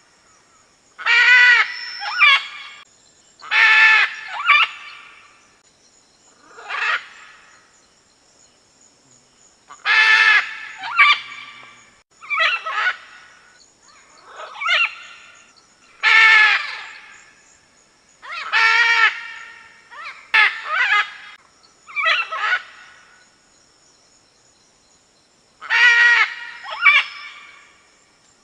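Red-and-green macaws giving loud, harsh squawking calls, about a dozen of them, each under a second, some in quick pairs, with irregular pauses between and a longer lull a few seconds before the end. A faint, steady high-pitched tone runs underneath.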